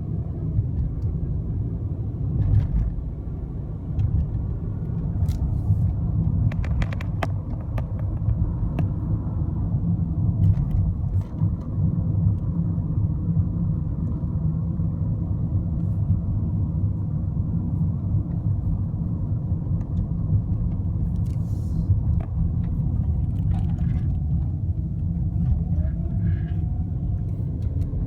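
2012 Volkswagen Jetta on the move: a steady low rumble of road and engine, with scattered short clicks and knocks, some of them in a quick cluster.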